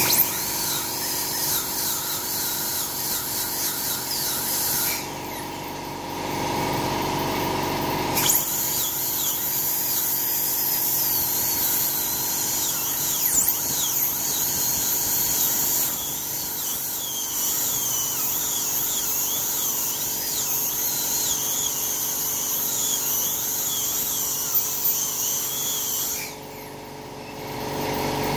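High-speed dental handpiece drilling into a tooth with its water spray on to open the pulp chamber for a root canal. It gives a steady high-pitched whine that wavers as it cuts, and pauses twice: about five seconds in, and again near the end.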